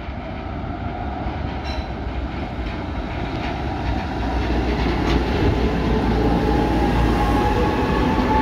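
An ASEA M28 tram approaching and passing close by on its rails, its rumble growing steadily louder. There are a few clicks, and a whine rising slightly in pitch comes in over the second half as the tram draws alongside.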